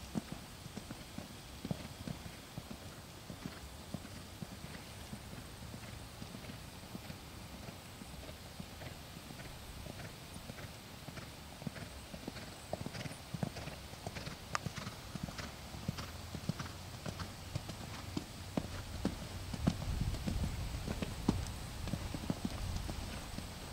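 Horse's hoofbeats cantering on sand arena footing, a running series of dull thuds in the canter's beat, over a low rumble that swells for a few seconds near the end.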